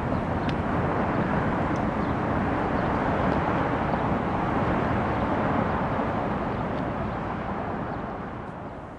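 Steady rumbling outdoor noise with no siren tone in it, fading out near the end.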